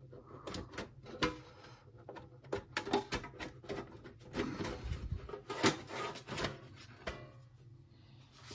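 The sheet-metal top cover of a Philips DCC 600 cassette deck being worked loose and slid off its chassis: a run of irregular scrapes, clicks and light metal clunks, the loudest about two-thirds of the way through.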